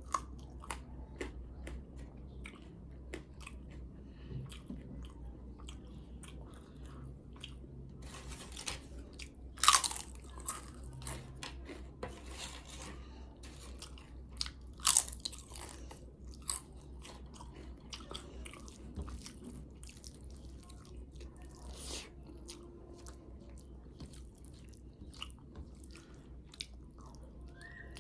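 Close-miked chewing of kadhi rice and crisp papad, with sharp crunching bites and wet chewing. The loudest crunches come about ten and fifteen seconds in, over a steady low hum.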